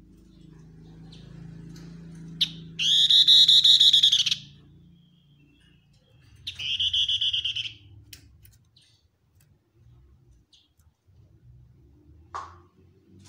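Pin-striped tit-babbler (tepus lurik) singing: two loud, fast trills of rapidly repeated notes, the first about a second and a half long and the second a little shorter, a few seconds apart.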